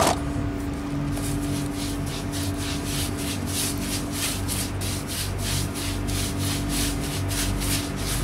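Wide paintbrush scrubbing sand-finish (non-skid) paint onto a rough ground concrete step: rhythmic bristle scrapes, about three strokes a second, starting about a second in.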